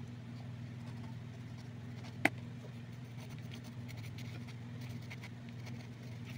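Faint, short scratching sounds on paper over a steady low hum, with one sharp click a little over two seconds in.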